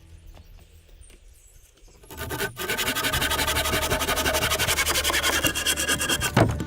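A loud, rough rasping scrape, like wood being worked with a saw or rasp, starting about two seconds in and ending with a thump just before the end.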